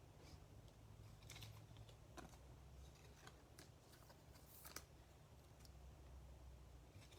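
Near silence, with faint, scattered clicks and short rustles of trading cards being handled.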